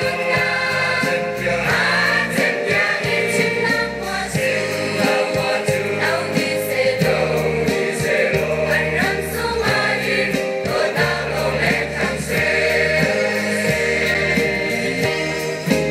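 A mixed church choir singing a gospel song in Hakha Chin, over a steady low backing line.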